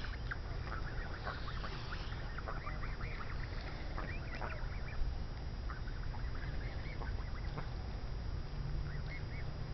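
A flock of young, nearly full-grown Canada geese calling, many short calls coming in quick, overlapping succession, over a steady low rumble.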